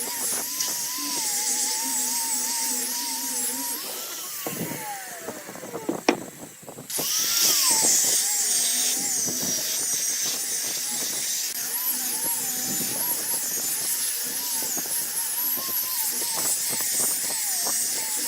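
Wood lathe turning a workpiece while a tool cuts the spinning wood, giving a steady high whine with a wavering pitch. About four seconds in the cutting drops off and a tone falls in pitch. A sharp click comes about six seconds in, and the whine of cutting starts again about a second later.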